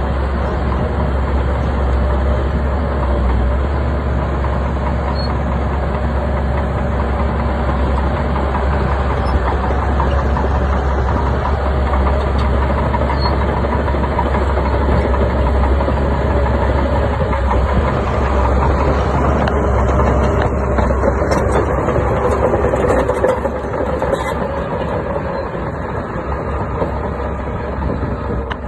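Crawler bulldozer's diesel engine running hard under load while pushing rock, a steady heavy drone with rough grinding texture, easing off somewhat near the end.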